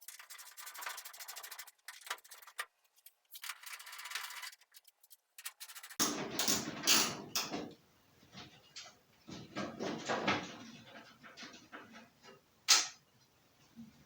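Hands and tools at work on a car body: a run of fast rattling clicks, then scattered knocks and scrapes, with one sharp clank near the end.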